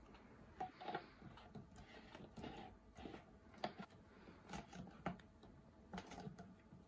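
Faint, irregular clicks and rubbing of plastic as a drip-irrigation fitting is screwed onto the neck of a plastic sparkling-water bottle.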